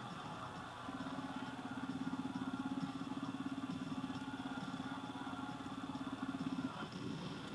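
Vehicle engine running in a TV movie soundtrack, heard through the TV's speaker: a steady, rapidly pulsing low hum that starts about a second in and stops shortly before the end.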